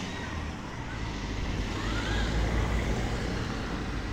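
Street traffic: a motor vehicle passing, its low rumble swelling for a few seconds and then easing.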